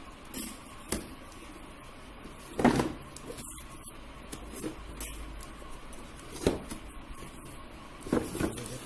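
A cardboard toy box being handled and turned over: a handful of knocks, taps and rubbing sounds, the loudest about two and a half seconds in, over a faint steady hum.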